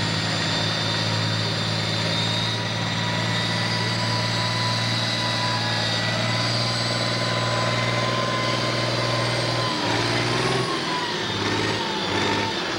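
Super stock pulling tractor's turbocharged diesel engine running hard under load, a steady heavy engine note with a thin high whine over it. About ten seconds in the note wavers and breaks up.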